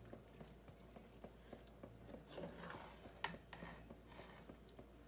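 Faint stirring of soup with a metal spoon in an aluminium stockpot: soft wet scraping and light clicks, with one sharper clink a little over three seconds in.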